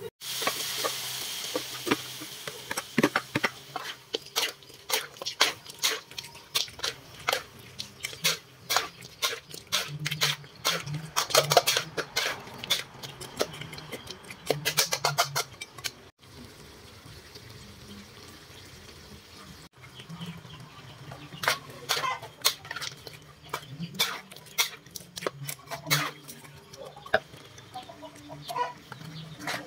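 Metal spatula and spoon clanking and scraping against a steel wok as meat is stir-fried. A sizzling hiss from the hot pan is loudest in the first couple of seconds and fades.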